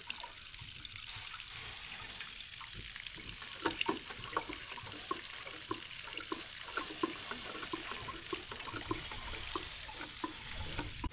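Fresh flushing water pouring off a Yamaha four-stroke outboard: a steady splashing hiss with many small irregular splats as the water pump indicator stream and the water off the lower unit hit the ground, the outboard being flushed of salt water.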